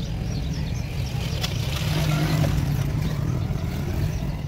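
A steady low engine rumble, with one short click about a second and a half in.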